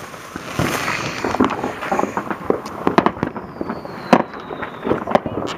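Consumer fireworks going off: an irregular run of sharp bangs and crackling pops, the loudest about four seconds in, with a faint falling whistle in the middle.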